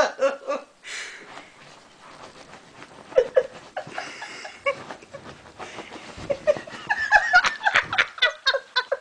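Shih Tzu digging at a bed comforter: quick, repeated scratching and rustling of the fabric under its paws, getting busier in the second half, with the dog's panting.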